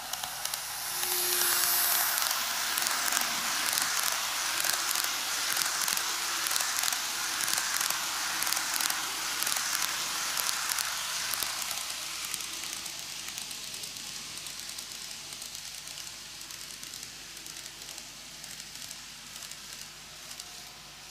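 N-gauge model train, a KATO ED79 electric locomotive hauling ten passenger cars, rolling past on TOMIX plastic-roadbed track: a hissing rumble of small wheels with rapid clicking. It swells about a second or two in and fades away over the second half as the train moves off.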